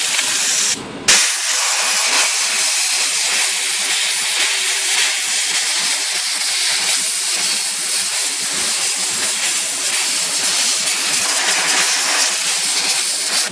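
Compressed air hissing steadily as it blows cleaning-chemical residue out of a typewriter's key levers and comb, with a brief break about a second in and an abrupt stop at the end.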